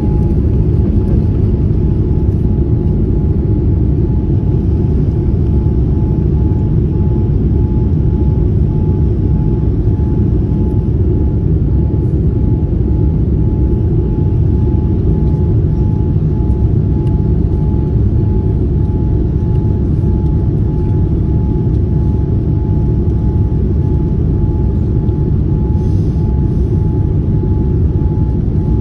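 Cabin noise of a Boeing 787-9 climbing just after takeoff: a steady, loud, low rumble of the engines at climb power and rushing air, with a thin steady tone running through it.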